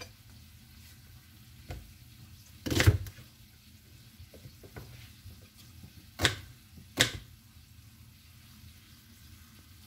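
A few sharp knocks of a kitchen knife on a cutting board as a red onion is cut, the loudest about three seconds in, over a faint sizzle of steak frying slowly in a stainless pan.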